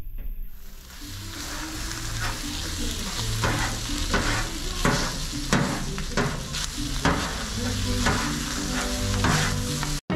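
Birria meat sizzling on a flat-top steel griddle while a cleaver chops it, with repeated sharp knocks of the blade on the steel, roughly one or two a second. The sizzle builds about half a second in, and the sound cuts off just before the end.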